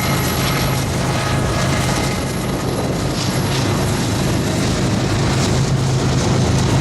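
Diesel freight locomotives running under power, a steady low engine drone with rail noise.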